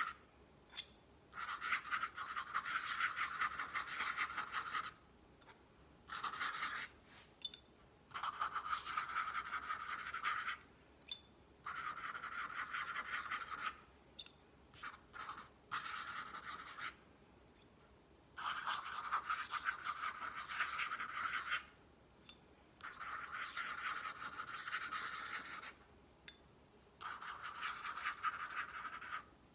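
Metal dip-pen nib scratching across tracing paper as looping script is written, in about eight runs of one to three seconds each. Short quiet gaps fall between the runs while the pen is lifted and dipped in the ink pot.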